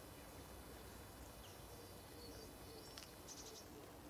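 Near-silent garden ambience: faint high chirps of small birds, with a sharp click and a brief rapid trill about three seconds in.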